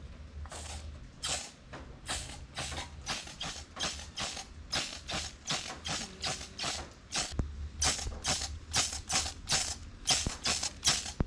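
Rust-Oleum Universal metallic spray paint can being shaken, the mixing ball rattling inside it in a steady rhythm of about two to three strokes a second to mix the paint before spraying.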